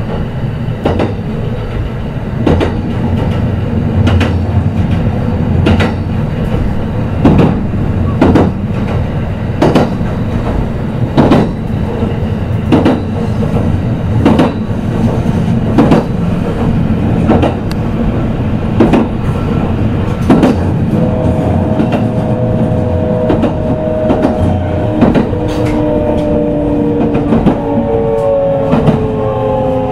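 Kintetsu 22000 series electric train heard inside motor car Mo22117: wheels clacking over rail joints about every second and a half over a steady running rumble. From about two-thirds in, a whine from the traction motors rises into hearing and falls steadily in pitch as the train slows on the approach to its stop.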